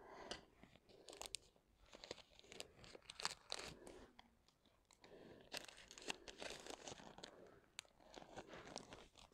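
Faint, intermittent crinkling and rustling of thin plastic, with scattered small clicks, as diamond-painting materials are handled.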